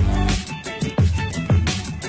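Background music with a steady beat: funky electronic track with kick drum about twice a second.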